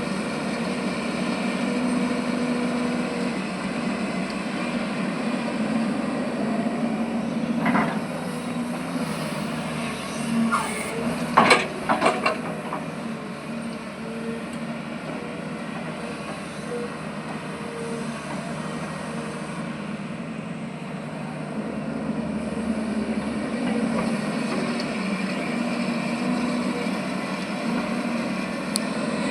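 Heavy diesel earthmoving machine running steadily at working revs. A few short, sharp metallic clanks and squeals come about 8 seconds in and again around 11 to 12 seconds, the loudest near the middle.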